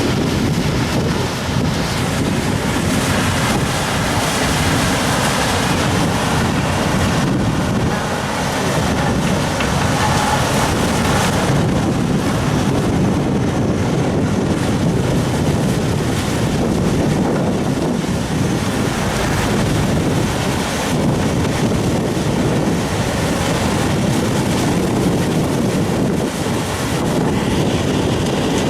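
Mechanical sugarcane harvester running steadily while cutting cane, a loud, even rushing noise.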